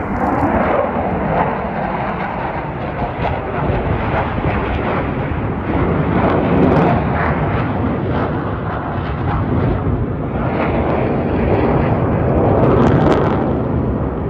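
Jet noise from Sukhoi fighters flying an aerobatic display overhead: a continuous rumbling rush that swells and eases as the formation and a solo jet pass, loudest near the end.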